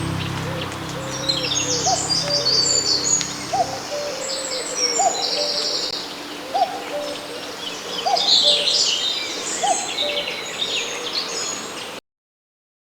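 Spring songbird chorus with a common cuckoo calling over it, its low hooting call repeated about every second and a half. Background music runs under it for the first few seconds, and all sound cuts off just before the end.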